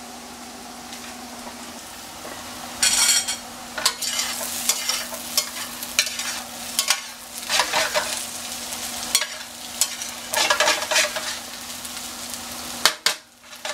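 Metal spatula scraping and turning home fries (diced potatoes and onions) in a stainless steel frying pan, with repeated scraping strokes starting about three seconds in, over the sizzle of the potatoes frying in butter on low heat.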